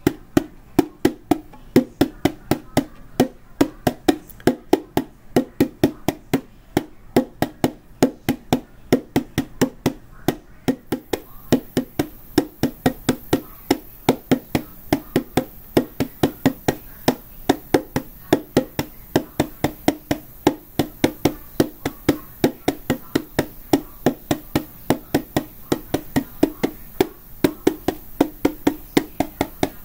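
Small skin-headed hand drum struck with the open hand in a steady, even beat of about two to three strokes a second.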